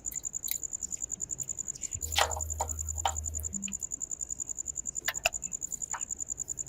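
An insect chirping in a steady, rapidly pulsing high-pitched trill, with scattered clicks and knocks and a short low hum about two seconds in.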